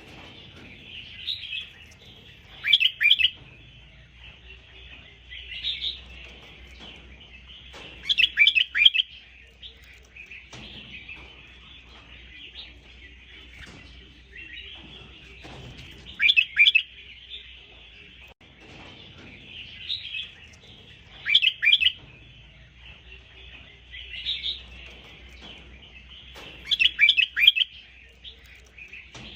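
Red-whiskered bulbul singing: short, bright phrases of three or four quick notes repeat every few seconds, softer phrases alternating with louder ones, over a faint steady chatter of other birds or insects.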